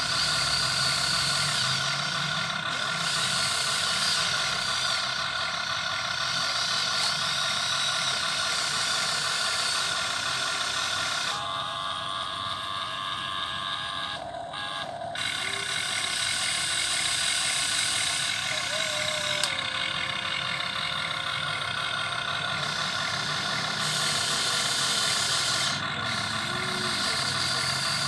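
RC model excavator's electric motors and gear drives whining steadily as it works. The mix of tones shifts as one motion stops and another starts, about halfway through and again some seconds later.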